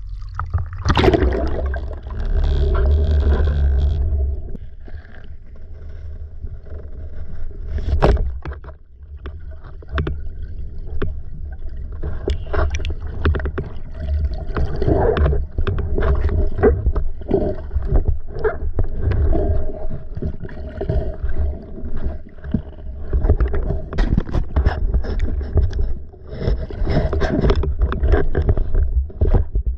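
Water sloshing and gurgling around a waterproof action-camera housing on a speargun as it moves at and under the surface, with a steady low rumble and irregular knocks and scrapes against the housing.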